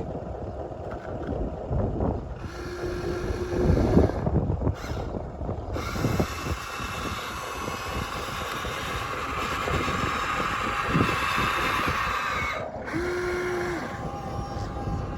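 Small electric motors and plastic gearboxes of radio-controlled toy construction machines whirring, with a steady high whine for several seconds in the middle, short tones, and scraping and knocking; wind buffets the microphone.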